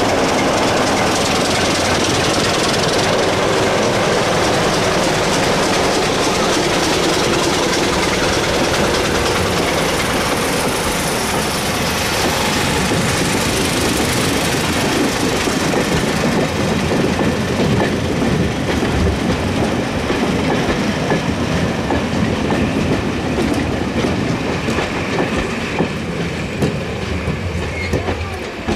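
British Railways Class 26 diesel locomotive and its coaches passing close by: the locomotive's Sulzer diesel engine running as it pulls away, then the coaches rolling past with a clickety-clack of wheels over rail joints, the sound fading near the end as the train moves off.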